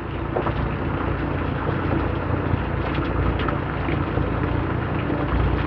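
Boat engine running steadily, a constant low hum with no change in pitch.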